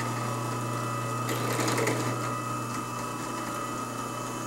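Small benchtop drill press running at its lowest speed: a steady motor hum with a thin whine above it. About a second and a half in there is a short rougher, scratchier noise over it, as the freshly sharpened bit is brought down toward the steel.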